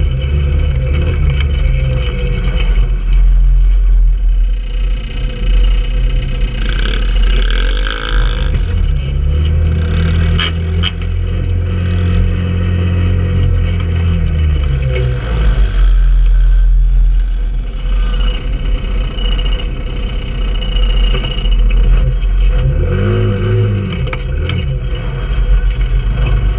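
Trailmaster 150 go-kart's small single-cylinder engine running and revving up and down as the kart drives over rough dirt, the pitch rising and falling several times.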